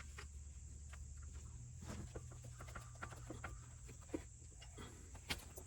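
Faint, scattered clicks and light knocks of hand work under the hood as the serpentine accessory belt is worked off its pulleys, with a sharper click about four seconds in and another near the end, over a steady low hum.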